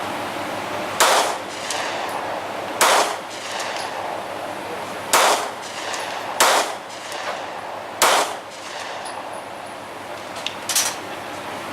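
Six gunshots fired at irregular intervals of about one to two and a half seconds, each a sharp crack with a short ring-out.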